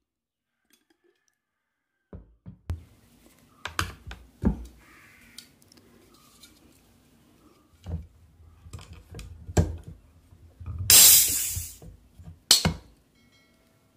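An aluminium Pepsi can being handled: scattered taps and knocks as fingers and nails grip it and it touches the table. Near the end comes a loud noisy rush lasting about a second, then a sharp click as a fingernail works at the ring-pull.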